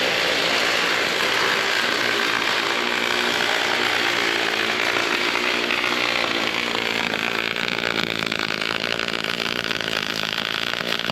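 Arc of a Miller 350 pulse MIG welder laying a weld on stainless steel, running on stainless wire and tri-mix shielding gas: a loud, steady, even-pitched buzz that cuts off abruptly at the end.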